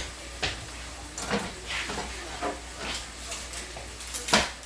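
Onions, shallot and garlic sauteing in a pan, a steady sizzling hiss, with a handful of irregular knocks and clatters from the kitchen, the loudest near the end.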